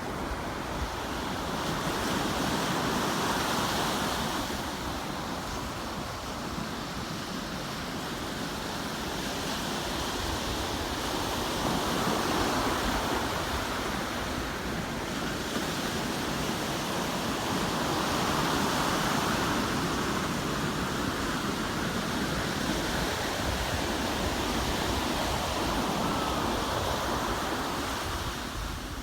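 Ocean surf breaking and washing up a sandy beach, the rush swelling and easing every several seconds as waves come in. Wind buffets the microphone with a low rumble.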